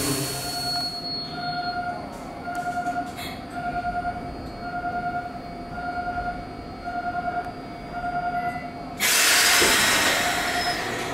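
Electronic level-crossing warning bell ringing in a steady two-note pulse, a little faster than one strike a second, with train noise fading as it starts. About nine seconds in, a sudden loud hiss drowns it for a couple of seconds.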